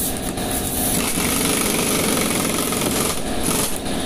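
Pneumatic impact wrench running with a fast hammering rattle, used to drive a bead breaker to push a tractor tyre's bead off its rusted rim.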